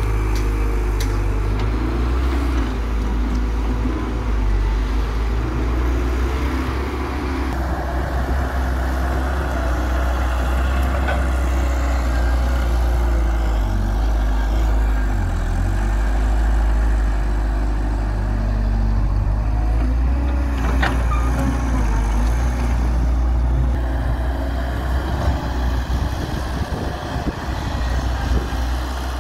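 Diesel engine of a Hyundai Robex 1300W wheeled excavator running steadily under load while it digs and loads soil, with a deep, even engine note throughout. A single sharp knock comes about two-thirds of the way through.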